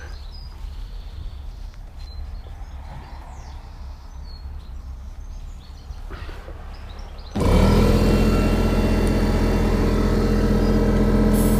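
Air compressor starting abruptly about seven seconds in and running loudly and steadily with a low machine hum, topping up a freshly plugged tyre with air. Before it starts there is only low background noise.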